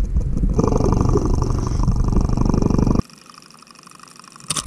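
Underwater camera audio: a loud, steady rumble of water against the microphone, with a fast buzzing layered on from about half a second in. It cuts off abruptly about three seconds in to a much quieter faint hum, and a burst of sharp clicks comes near the end.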